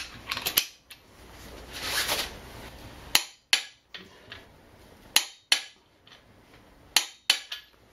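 Click-type torque wrench clicking as it reaches its set torque of about 80 ft-lb (105 N·m) on a lower ball joint nut: three sharp double clicks, a couple of seconds apart, with a little metal tool clatter near the start.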